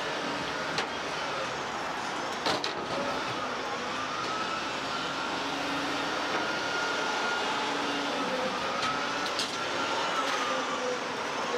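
Car-hauler truck running steadily, with a faint wavering whine and a few sharp clanks.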